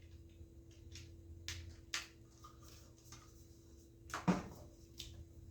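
Scattered small clicks, taps and rustles of a plastic collapsible lantern and its USB charging cable being handled and unhooked, with one louder knock about four seconds in.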